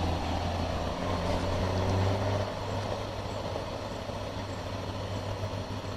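A diesel freight locomotive's engine running with a steady low hum under rumbling noise, fading over the second half.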